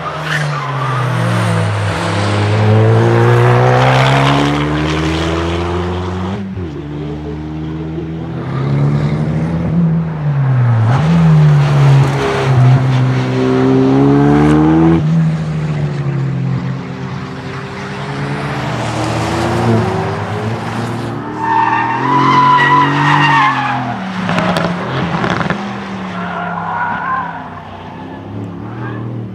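Dallara Stradale's turbocharged four-cylinder engine at full throttle on a race track, its pitch climbing through the gears in several runs with a drop at each shift. Tyre squeal comes about two-thirds of the way in.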